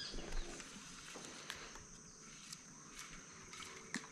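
Faint lakeside ambience: a steady high-pitched insect drone, with a few scattered light clicks.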